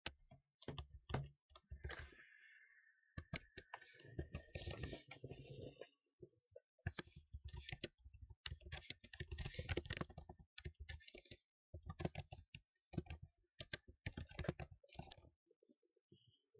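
Computer keyboard typing: rapid runs of key clicks in bursts, broken by short pauses.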